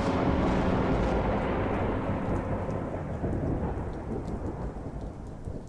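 Thunderstorm sound effect: a long low rumble of thunder under an even hiss of rain, slowly fading away.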